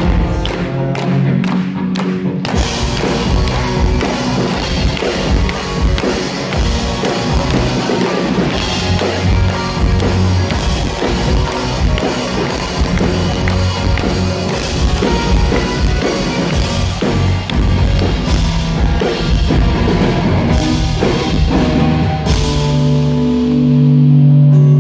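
Live rock band playing an instrumental passage with a full drum kit and electric guitars. About 22 seconds in the drums stop and held guitar chords ring on.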